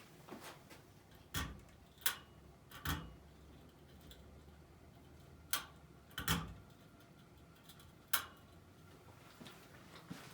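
About six sharp clicks at uneven intervals from the sticky, rusty pull-chain speed switch of an SMC-made Hampton Bay Landmark (DC-42) ceiling fan, with a faint low hum underneath.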